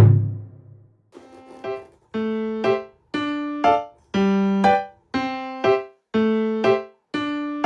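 Background music on a piano-like keyboard, playing a repeating pattern of about one chord a second, each answered by a shorter note.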